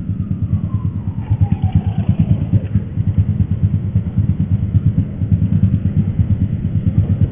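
Motorcycle riding sound heard through a helmet intercom microphone as the bike pulls across an intersection: engine and wind make a loud, rapidly pulsing low rumble. A faint tone falls in pitch over the first two or three seconds.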